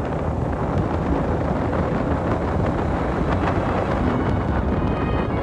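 Steady wind rushing over the microphone, mixed with the engine and road noise of a Honda sport motorcycle riding along.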